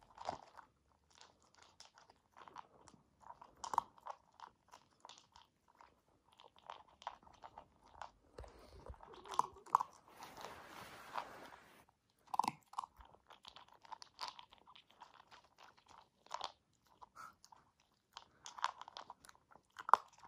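A Siberian husky puppy eating dry kibble from a plastic bowl: quick, irregular crunching and clicking as it chews. About halfway through there are a couple of seconds of rustling noise.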